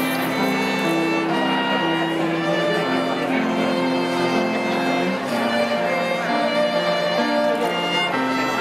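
Digital piano and bowed strings, cello among them, playing a lyrical piece together live, with long held notes over moving lines.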